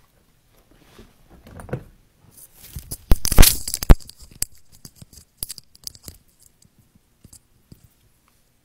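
Phone being handled close to its microphone: scattered clicks and rustles, with a loud scraping rub about three seconds in.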